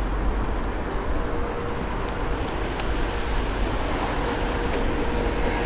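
Wind buffeting the microphone: a steady rushing noise with a heavy, uneven low rumble. A faint steady hum sits underneath, starting about a second in and again near the end.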